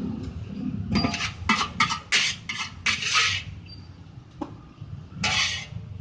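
Metal utensil scraping and clanking against cookware: a quick run of short strokes with a slight metallic ring through the first half, then one more stroke near the end.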